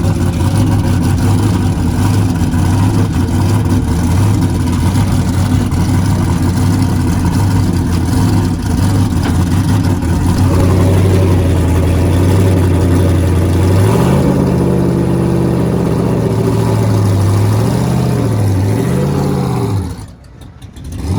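Car engine idling with a steady low note, then revved several times from about two-thirds of the way through, the pitch rising and falling with each blip. The sound drops away sharply for a moment just before the end.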